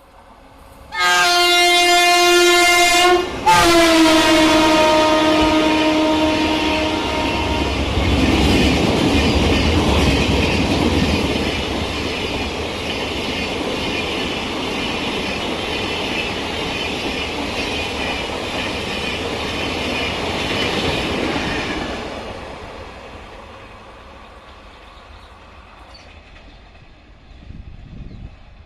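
WAP-7 electric locomotive's horn blowing two long, shrill blasts, the second dropping in pitch as the locomotive passes. The express then rushes through at speed, its wheels clattering on the rails for about fifteen seconds before fading away.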